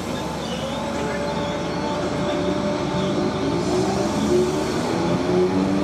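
Southern Class 313 electric multiple unit pulling away from the platform, its traction motor whine slowly rising in pitch as it gathers speed over a steady rumble of wheels on the rails.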